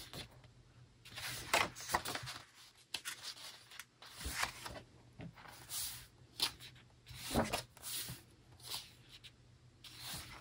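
Pages of a paper photobook being turned and handled: a series of soft paper rustles and swishes, one every second or two.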